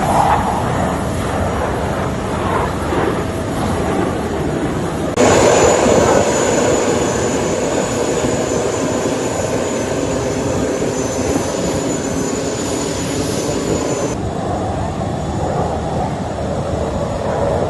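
Jet aircraft engine noise, a steady loud rush. It changes abruptly at spliced cuts about five and fourteen seconds in. The louder middle stretch carries a thin high-pitched whine.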